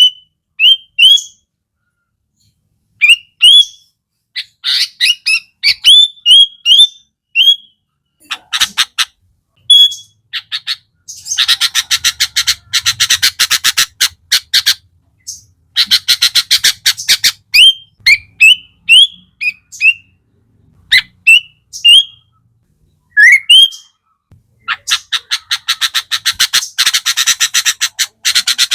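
Sooty-headed bulbul (kutilang) singing: short rising whistled notes, broken up three times by long, very fast chattering rattles of several seconds each.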